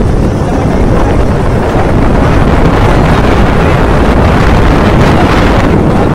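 Loud, steady wind rush buffeting the microphone while riding a motorcycle at speed, with the vehicle's running noise underneath.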